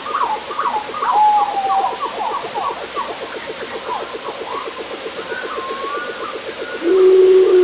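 Bird-like animal calls: many short chirps sliding up and down, over a fast, even pulsing drone. About seven seconds in comes a louder call held on one low pitch for about a second.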